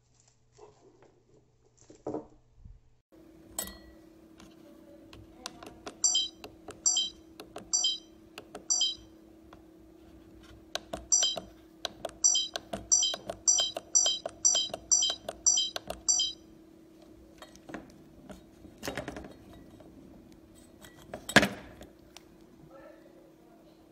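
Trail camera's keypad beeping at each button press while its settings menu is stepped through: short high beeps, four about a second apart, then a quicker run of about a dozen. Handling clicks over a low steady hum, with a louder knock near the end.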